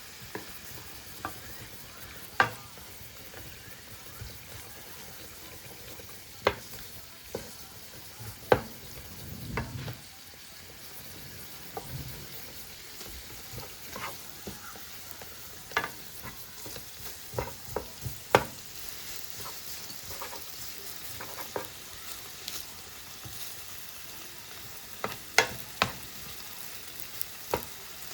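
Yakisoba noodles sizzling in a hot pan while they are stirred and worked apart, with sharp clacks and scrapes of a utensil against the pan every second or so, in quick clusters in the second half. The noodles are still stiff and clumped, not yet loosening.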